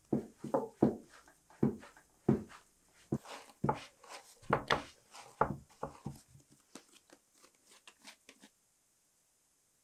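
Bread dough being kneaded by hand in a floured wooden trough: a run of irregular soft thumps and squishes as the dough is pressed and folded against the wood. Near the end these give way to fainter scratching of hands across the floured trough.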